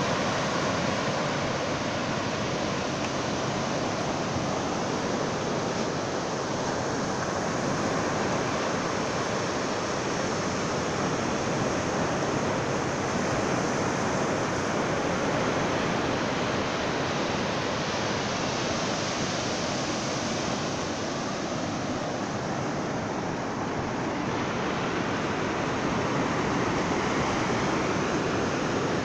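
Ocean surf breaking along a flat sandy beach: a steady, even rushing wash of waves with no wind.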